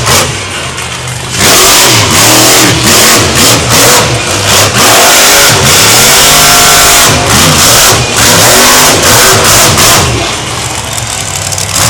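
Monster truck's supercharged V8 engine revving hard again and again, its pitch climbing and falling with each throttle blip, loud enough to overload the recording. The engine eases off briefly about a second in and again near the end.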